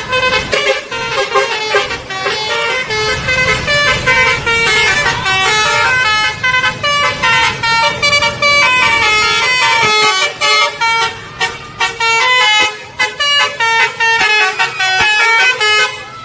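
Bus telolet (basuri) multi-tone horn playing a fast melody, its notes stepping quickly up and down with several tones sounding together, over a low rumble of the bus.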